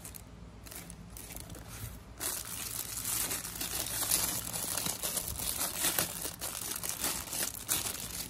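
Plastic bag and foam packing sheet crinkling and rustling as a wrapped part is handled and unwrapped by hand; only faint crackles at first, then continuous crackling from about two seconds in.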